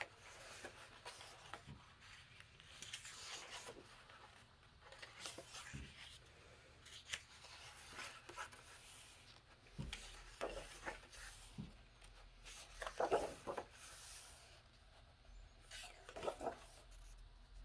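Pages of a paperback coloring book being turned one after another: faint papery swishes and rustles, a page about every second or so.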